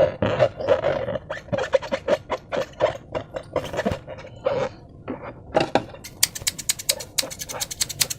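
Slime squelching in quick, irregular wet bursts, with trapped air popping through it. About six seconds in, a fast run of sharp crackling clicks follows.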